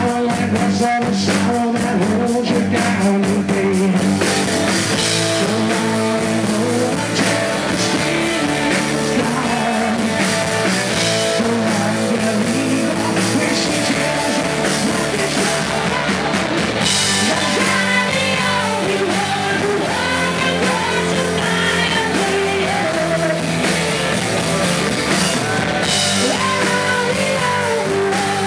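Country rock band playing live: drum kit, electric bass and guitar, with singing that comes through more plainly in the second half.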